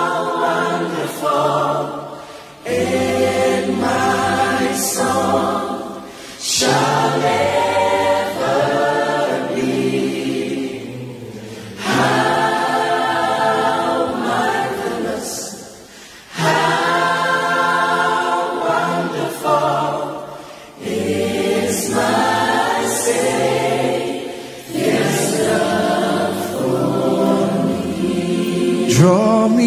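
Gospel choir singing together in long phrases, with a short dip between them every four to five seconds.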